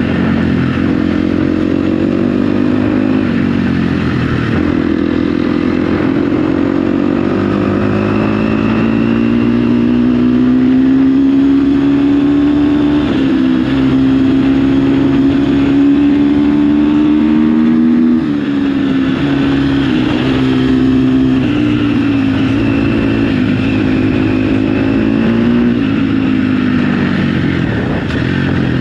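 KTM SX-F 250 dirt bike's single-cylinder four-stroke engine running under way on a trail. Its pitch climbs slowly, then drops and climbs again several times as the throttle is worked and gears change.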